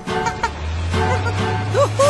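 Empty oil drums struck as musical drums, giving carnival-style music with rhythmic hits and ringing notes. A low steady hum joins about half a second in.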